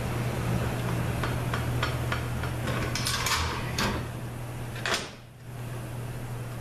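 Metal clicks, knocks and scrapes as a drum assembly is worked loose and slid out of the front of an A4LD automatic transmission case. A louder scrape comes about three seconds in and again near five seconds, over a steady low hum.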